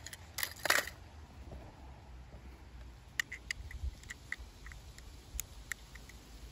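Small clicks and light rattles of diecast toy cars being handled: a quick cluster of clicks about half a second in, the loudest, then scattered light clicks a few seconds later.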